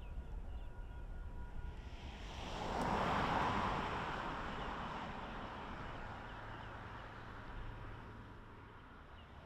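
A passing vehicle's noise swelling to a peak about three seconds in, then slowly fading away.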